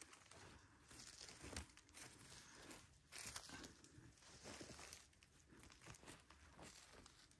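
Faint rustling and crackling of dry fallen leaves and forest soil as a hand brushes and presses around the base of a porcini mushroom, in soft irregular scrapes.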